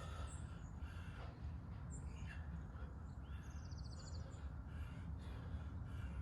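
Birds chirping over a steady low rumble, with a short rapid trill about halfway through.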